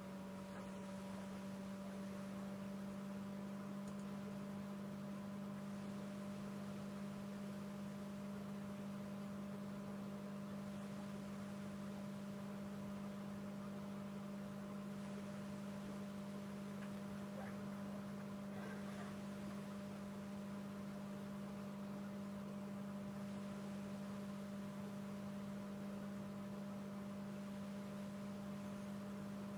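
Faint, steady electrical hum with a constant low tone and a couple of fainter higher tones over a light hiss, unchanging throughout.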